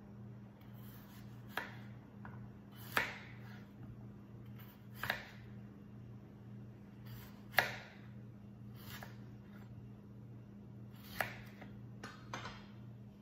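Kitchen knife slicing a peeled white radish (labanos, a daikon) into rounds, each cut ending in a sharp tap on the cutting board: seven cuts, unevenly spaced a second or two apart, over a steady low hum.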